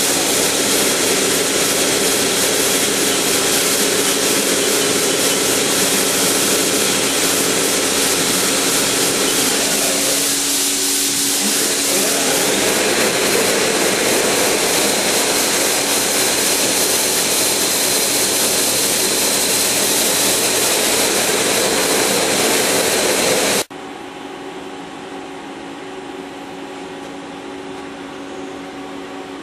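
Haas SL-30T CNC lathe running: a loud, steady hiss with several steady tones, shifting briefly a little past ten seconds in. Near the end it cuts off abruptly to a much quieter steady machine hum.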